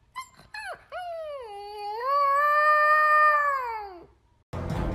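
Husky-type puppy howling: a few short yelps, then one long howl that dips, rises, holds and falls away at the end. Music comes in just before the end.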